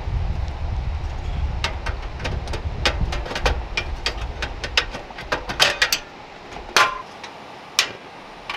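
Metal clicks and clacks of a portable butane camp stove being set up: the gas canister fitted and locked into its slot and a frying pan set on the burner. Two louder clicks near the end as the control knob is turned, with a low rumble underneath that stops about two-thirds of the way through.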